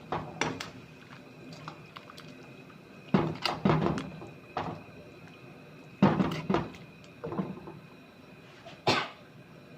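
Cookware and utensils knocking and clinking in a kitchen: short clatters in several clusters a few seconds apart.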